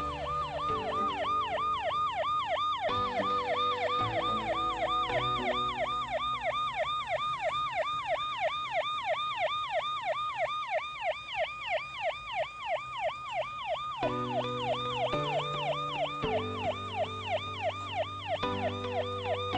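Emergency-vehicle siren in a fast yelp, its pitch sweeping up and down about three times a second without a break. Background music chords play underneath, dropping away through the middle.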